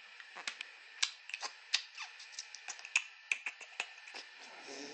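Scottish Fold kitten licking its paw: a run of small, quick, irregular wet tongue clicks.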